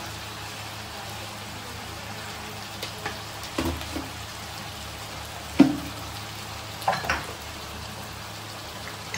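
Masala frying in a cooking pan with a steady low sizzle as ground spices are added, and several sharp knocks of a spoon against the pan, the loudest a little past halfway.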